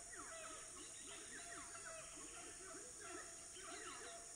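Amazon rainforest dawn chorus: a steady high-pitched drone of cicadas and other insects under many overlapping animal calls, low hooting calls repeating several times a second and higher, falling calls.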